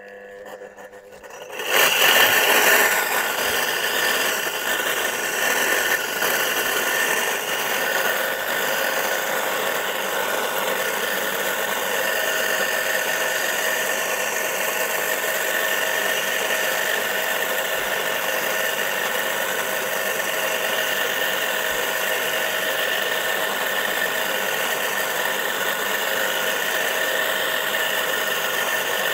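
A single-phase electric motor on a two-wheeled garden cultivator starts up suddenly just under two seconds in, then runs steadily and loudly while cutting a furrow. It starts on a stand-in pack of two capacitors that replaced a burnt-out start capacitor.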